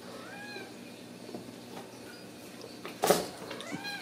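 Ragdoll kittens mewing: two short high mews that rise and fall, one near the start and one near the end. About three seconds in, a single loud knock, with light taps and scuffles of play around it.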